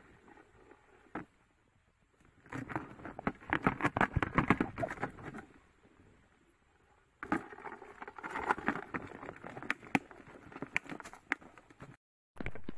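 Crabs scrabbling inside a closed plastic food container, their legs and claws clicking and scratching on the plastic in rapid crackling patter. It comes in two spells of a few seconds each, starting about two seconds in, with a short lull between.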